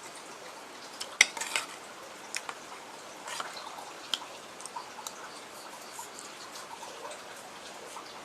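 Cutlery clinking against a dish while eating: one sharp clink about a second in, a few quick ones right after, then scattered lighter clicks.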